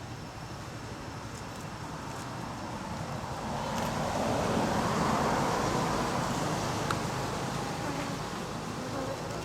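A road vehicle passing by: a rushing noise that swells to a peak about five seconds in and then fades away.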